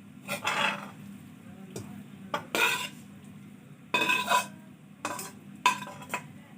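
A spoon scraping and clinking against a cooking pan in about five short bursts, scooping cooked chicken pieces out of the pan onto macaroni in a baking tray.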